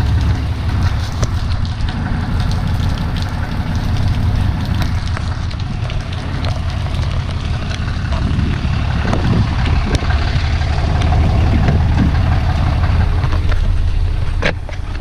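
Car engine running, heard from inside the vehicle: a steady low rumble, with rain falling on the car adding a hiss and scattered small ticks.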